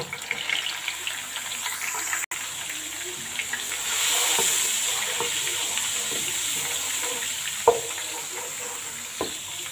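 Garlic-ginger paste sizzling in hot oil in a karahi while it is stirred with a wooden spoon; the sizzle grows louder about four seconds in. Two short knocks sound near the end.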